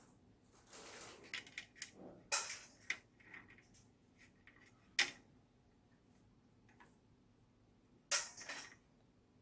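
Hands and tools handling an LED ceiling light's module strips: a run of small clicks, taps and scrapes in the first few seconds, a single sharp click about five seconds in, and a brief scrape near the end.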